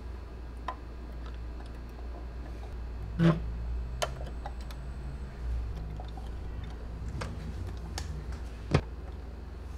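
Handling of a scale model Scania truck: scattered light clicks and knocks as the cab and its parts are moved, two of them louder, about three seconds in and near the end, over a steady low hum.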